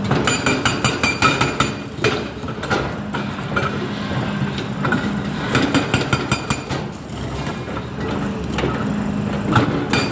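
Hydraulic breaker hammer on a Volvo EC300DL excavator pounding rock with rapid blows in bursts: for the first two seconds, again around the middle, and near the end. The excavator's diesel engine runs steadily between the bursts.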